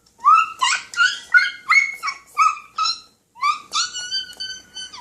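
A small dog yipping: a quick run of short, high-pitched yelps, then a second run after a short pause.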